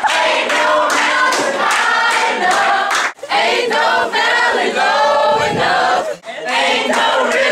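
A group of teenagers singing together, with no clear backing music. The singing breaks off abruptly twice, about three and six seconds in.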